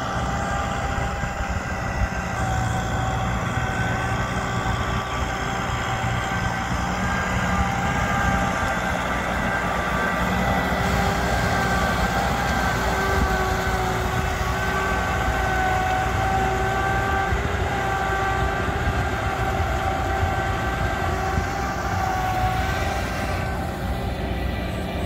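Diesel farm machinery running steadily under load: a tractor or combine harvester engine rumbling, with a steady high whine over it that wavers a little in pitch.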